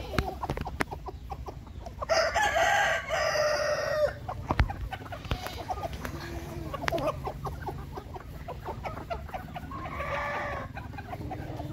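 Free-range country chickens clucking, with a rooster crowing loudly for about two seconds a couple of seconds in. A shorter, quieter call comes near the end.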